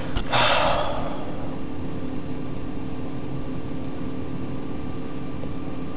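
A steady machine hum with a few constant tones over a low rumble, and a brief rustling noise about half a second in.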